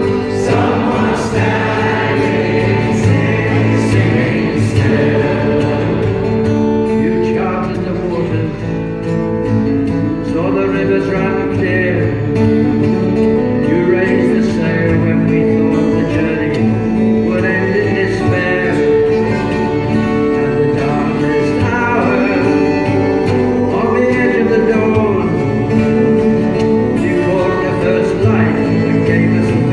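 Male voice choir singing held harmonies behind a solo singer, accompanied by strummed acoustic guitars.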